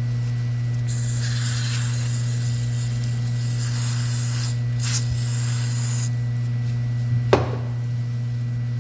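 Scratchy, hissing wire-brushing of the rusty steel pliers, in two stretches over about five seconds, then a single sharp click near the end, over a steady low hum.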